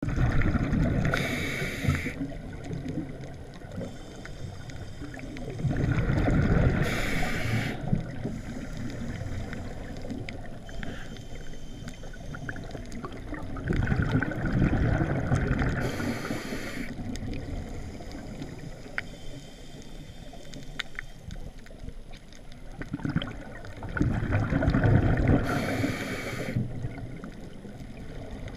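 A diver's Scubapro MK25/S600 scuba regulator heard underwater through four breaths. Each breath is a hiss of air drawn through the regulator and a gurgling rush of exhaled bubbles. Faint scattered clicks fall between the breaths.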